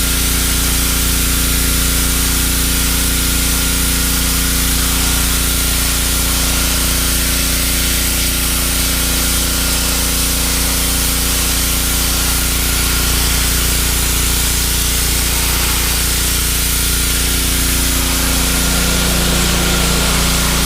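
Pressure washer running steadily, its motor drone under the constant hiss of the water jet spraying the surface.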